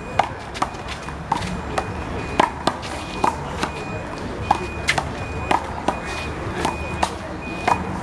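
A rubber big blue handball in a fast one-wall handball rally, slapped by hands, hitting the wall and bouncing on the court: sharp smacks, two or three a second.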